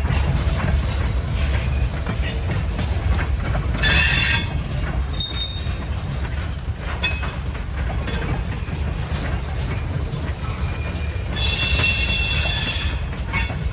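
A freight train rolling slowly past with a heavy low rumble, its car wheels squealing on the rail twice: briefly about four seconds in, and again for about a second and a half near the end.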